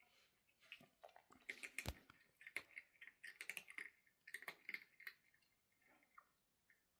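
A cat chewing dry food: a run of small crunches and clicks, busiest about one and a half seconds in and again around four and a half seconds.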